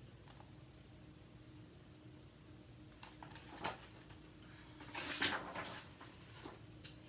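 Soft paper rustling of a picture-book page being turned, loudest about five seconds in, with a couple of smaller rustles before and after, over quiet room tone.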